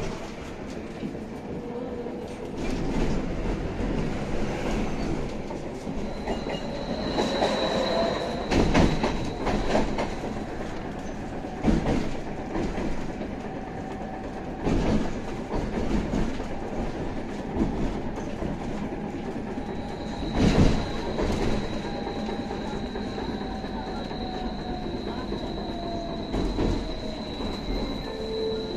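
Belkommunmash BKM 802E tram heard from inside the passenger compartment while running: a steady rolling rumble with sharp knocks from the wheels every few seconds. A thin high whine comes in briefly a quarter of the way in and returns for the last third.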